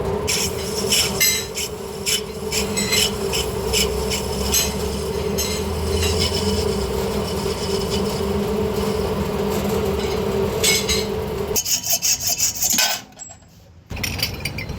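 Metal lathe running with a steady hum while metal scrapes against the spinning workpiece in repeated rasping strokes. The motor hum stops about three-quarters of the way through, and after a brief lull the scraping noise starts again.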